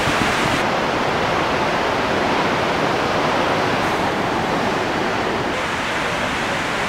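Heavy ocean surf breaking against a rocky shore: a steady, unbroken wash of noise from large waves.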